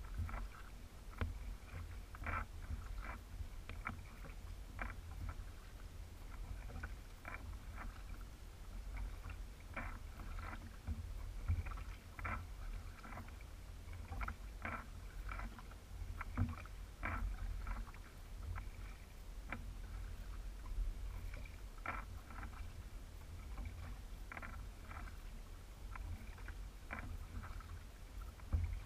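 Kayak paddle strokes: the blades dipping and water splashing and dripping in short, irregular splashes, about one or two a second, over a low steady rumble.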